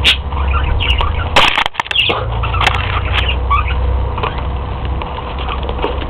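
Budgerigar making short scattered chirps and clicks, with a brief burst of wing flapping about a second and a half in as the bird moves back from the camera.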